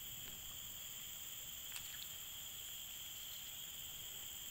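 Steady, high-pitched chorus of insects, with a faint click about two seconds in.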